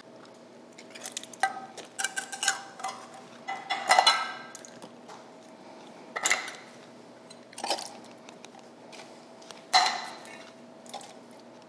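Small tin cans of diced green chilies clinking and tapping against each other and the counter as they are emptied into freezer bags: scattered metallic clinks, some ringing briefly.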